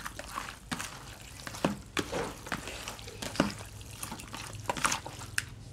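Hands mixing raw chicken pieces in a plastic basin: irregular wet squelches.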